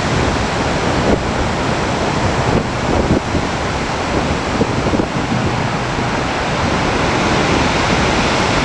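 Strong wind blowing steadily through pine trees during a windstorm, with gusts buffeting the microphone in a low rumble.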